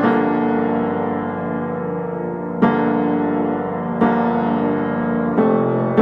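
Background piano music: soft chords struck about every one and a half to two and a half seconds, each left to ring and fade.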